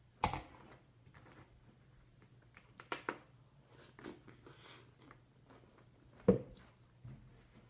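Oversized metal fork clinking and scraping against a plate in a few sharp knocks, the loudest just past six seconds in, with chewing in between.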